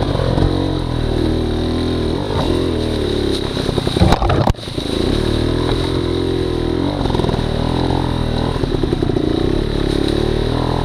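A 280cc two-stroke trials motorcycle engine being ridden over rough trail, its revs rising and falling repeatedly. There is a loud burst of clattering about four seconds in.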